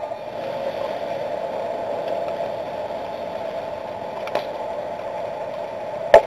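Steady outdoor ambience at a baseball field, with a faint click about four seconds in and a sharp crack near the end.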